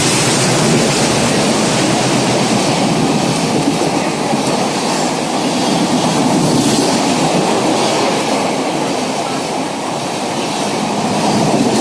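LHB passenger coaches of an express train passing through at high speed close by: a loud, steady rush of wheels rumbling and clattering on the rails.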